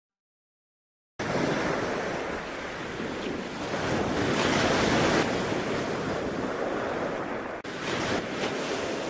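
Wind rushing in gusts under a gathering thunderstorm, a loud, even noise that starts about a second in and swells and eases. It cuts out for an instant about three-quarters of the way through.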